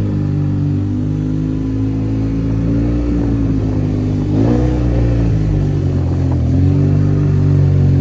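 Yamaha TMAX 530 maxi-scooter's parallel-twin engine running while riding at low speed. Its note steps up about halfway through as the throttle opens, dips briefly, then rises again and grows slightly louder.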